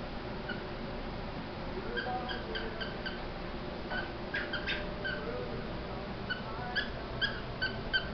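Kerry Blue Terrier puppy whimpering in short, high-pitched squeaks, repeated in clusters from about two seconds in and coming thickest near the end.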